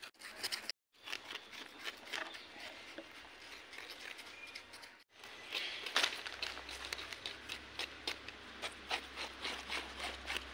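Knife blade scraping the scales off whole pomfret on a wooden chopping board, in quick repeated strokes several times a second.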